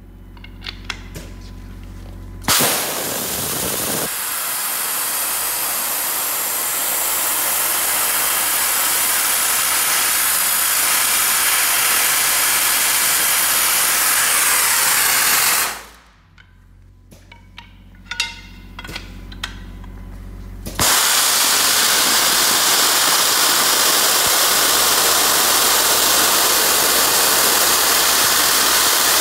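Dry-ice blasting nozzle firing 3 mm dry-ice pellets in compressed air at a wooden beam, a loud steady hiss. It blasts for about thirteen seconds, stops with a few clicks while only a low compressor hum remains, then starts again about two-thirds of the way through.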